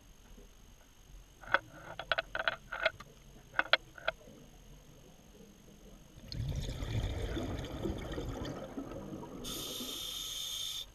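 Scuba diver breathing on a regulator underwater: a low rush of exhaled bubbles for about three seconds, then the high hiss of an inhalation, cut off sharply near the end. Earlier, about two seconds in, a quick run of short clicks and squeaks.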